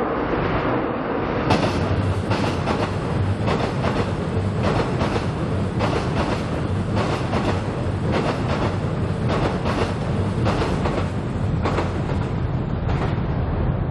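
Seoul Subway Line 7 train crossing a bridge, its wheels clacking over the rail joints in quick repeated pairs over a steady low rumble. The clacking starts about a second and a half in and fades near the end.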